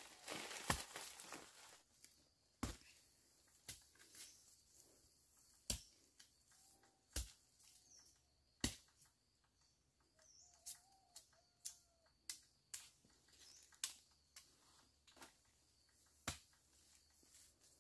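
Sharp snapping clicks at irregular intervals, roughly one a second, over near silence. There is rustling in the first two seconds and a few faint short chirps in the middle.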